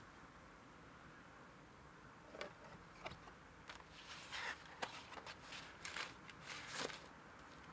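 Quiet rustling and small clicks of a vinyl record being handled and slid out of its sleeve, a scatter of short sounds starting a couple of seconds in.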